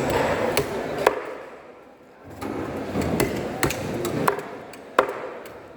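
Fish being cut up on a wooden chopping block: several sharp, irregularly spaced knocks of a heavy blade striking the block.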